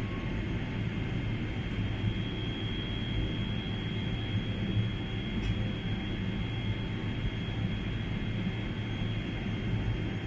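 Steady jet-airliner cabin noise in flight: an even rush of engine and airflow noise with a thin, steady high whine running through it.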